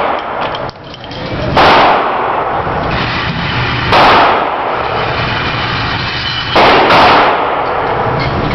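Gunshots at a shooting range: four loud shots at uneven spacing, the last two less than half a second apart, each followed by a short echo.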